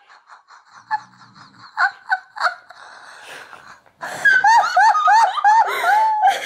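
A girl laughing: quiet, breathy giggling at first, then loud, high-pitched bouts of laughter, about four a second, from about four seconds in.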